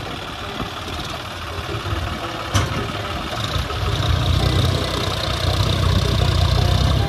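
John Deere 5210 tractor's three-cylinder diesel engine running, getting louder about halfway through as it works to pull through loose soil. A single sharp click about a third of the way in.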